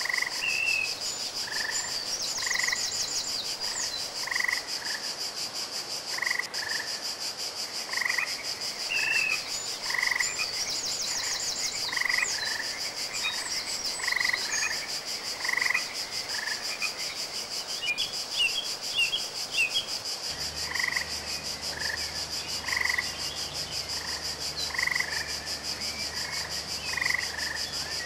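Frogs croaking in short, evenly spaced calls about once a second, pausing for a few seconds about two-thirds of the way through, over a steady high hiss. A faint low hum comes in at about the same point.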